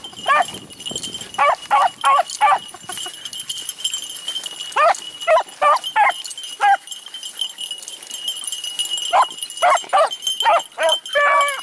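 Beagles baying on a rabbit's track: short, high barks in bursts of three to six, a few seconds apart, over a steady high tone.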